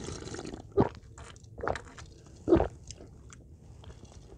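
Close-miked drinking from a glass: a slurping sip at the start, then three loud gulping swallows about a second apart.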